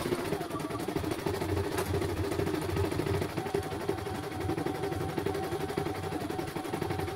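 CNY E900 portable embroidery machine stitching, played at double speed: a fast, steady mechanical rattle of the needle going up and down.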